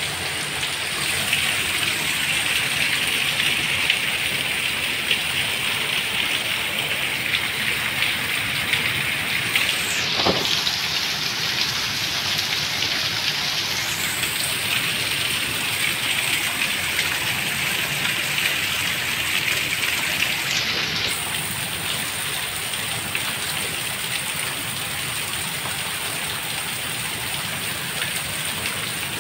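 Torrential rain pouring steadily onto hard paving, a dense, even hiss with no let-up.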